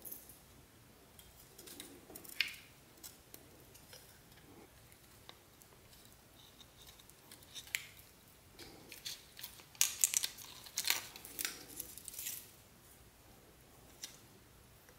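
Handling noise: printed circuit boards, small motors and plastic ribbon cables clicking and rustling as they are shuffled in the hands, with a busier run of clicks and crinkles about ten seconds in.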